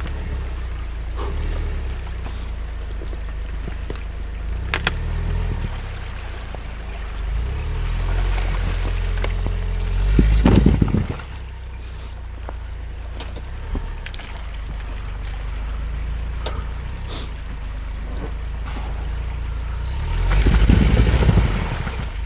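Off-road vehicle engine running steadily while driving through snow, with two loud surges: one about halfway through and one near the end.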